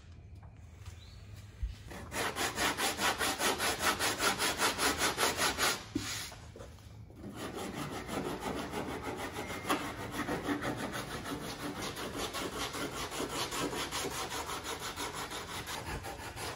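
Body filler on a car's quarter panel being sanded down by hand, quick even back-and-forth strokes at about three to four a second starting about two seconds in. The strokes stop briefly about six seconds in, then go on more softly.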